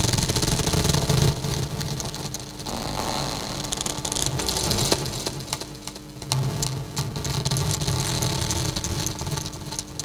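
Contact microphone inside a circuit-bent rotary-dial telephone picking up hands rubbing the casing and turning the dial, amplified into a dense scraping rumble full of clicks. Its texture shifts twice as the handling changes.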